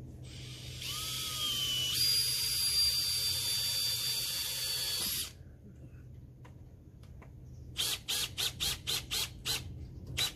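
Power drill driving a screw into the wooden fence frame: its motor whines for about five seconds, rising in pitch as it spins up and stepping higher about two seconds in, then stops suddenly. Near the end comes a quick run of about eight short, sharp bursts, roughly four a second.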